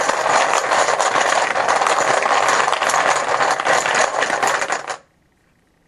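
Small hard team-logo discs being shaken and stirred by hand in a container for a random draw, a dense continuous rattle and clatter that stops suddenly about five seconds in.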